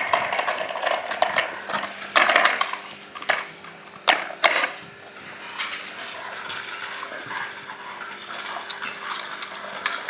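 Plastic toy vehicles rattling and clattering as they are pushed and handled on a stone-paved floor, with irregular sharp knocks and small clicks.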